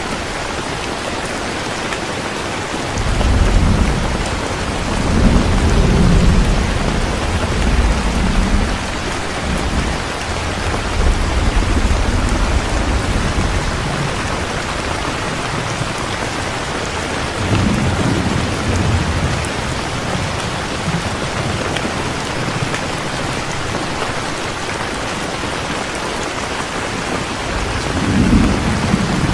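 Strong rain falling steadily, with thunder rumbling over it: a long rumble starting about three seconds in, another a little past the middle, and a shorter one near the end.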